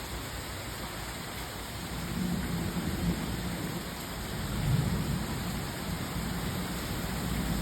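Heavy rain falling steadily, with a low rumble of thunder that builds about two seconds in and is loudest around the middle.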